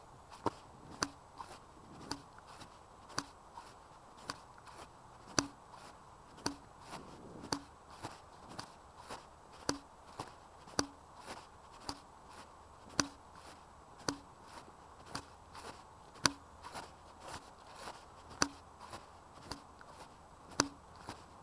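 Walking steps jolting a body-worn camera: a sharp click about twice a second, many with a soft thud under them, over faint hiss.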